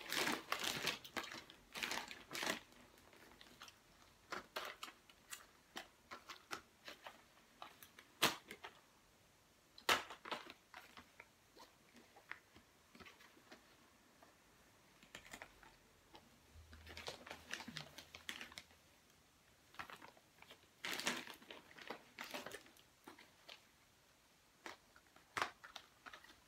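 Plastic mailer bag rustling and small cardboard boxes being handled and set down, in scattered sharp clicks and crinkles that come in clusters with short quiet gaps between them.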